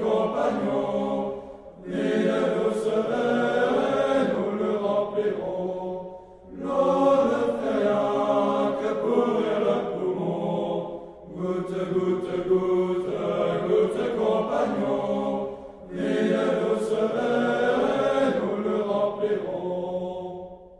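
A group of voices singing a French drinking song (chanson à boire) in phrases of about four seconds, with short breaks between them. The song ends just before the close.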